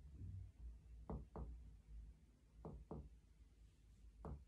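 Finger-on-finger chest percussion: soft paired taps on the patient's chest wall, three pairs about a second and a half apart, as the examiner steps down the midaxillary line to find the lower border of the lung.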